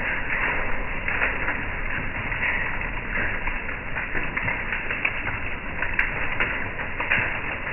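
Hail and rain falling on a wooden deck: a steady hiss of rain with many small, sharp ticks of hailstones striking.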